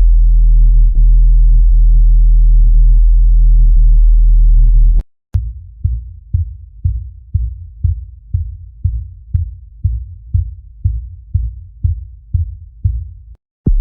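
Heartbeat sound effects. First a heartbeat pulsing under a steady deep drone, which cuts off about five seconds in. After a brief silence comes a second heartbeat of clean, separate thumps, about two a second. It stops shortly before a new low drone begins near the end.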